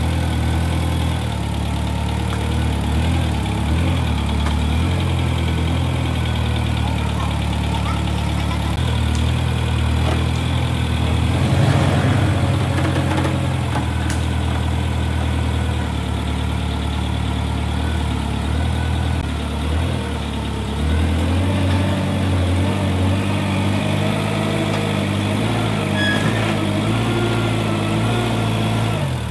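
An engine running steadily at low revs, its pitch shifting up and down every few seconds.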